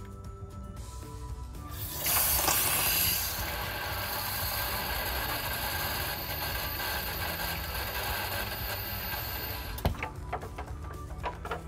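Water pouring into a humidifier tank that already holds bleach, mixing the sanitizing solution. It starts about two seconds in with a louder rush, then runs as a steady splashing hiss for about eight seconds, and stops with a click.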